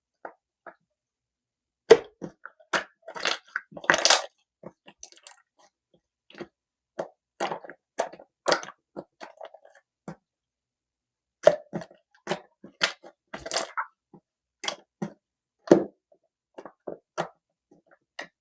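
Slime being squished and pressed by hand, giving irregular sticky pops, clicks and crackles in clusters with short silent gaps between them.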